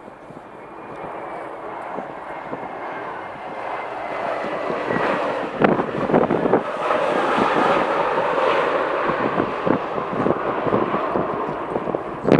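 Jet airliner's engines rushing past, the noise swelling over the first five seconds and staying loud, with a faint falling whine early on. Gusty wind buffets the microphone through the loud part.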